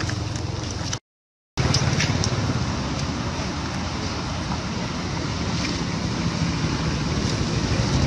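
Steady wind noise buffeting the microphone. The sound cuts out completely for about half a second, a second in.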